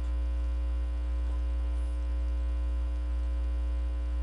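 Steady low electrical mains hum in the microphone signal, with fainter steady tones above it and no other sound.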